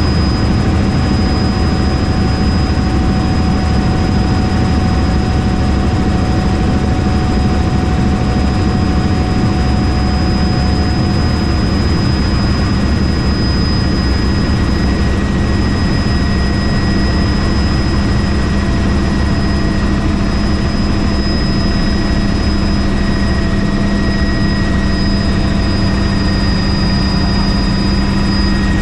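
Helicopter in flight: its rotor and engine make a steady, loud drone with a constant high whine over it.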